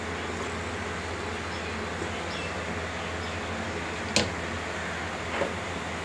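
Biogas-fed gas stove burner running with a steady rushing flame noise, the gas coming through at high pressure. A sharp click about four seconds in, and a fainter one a little over a second later.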